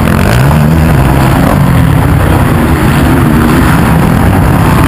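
Motocross bike engines revving up and down as they race round the dirt track, loud throughout, with pitch glides as the riders open and close the throttle.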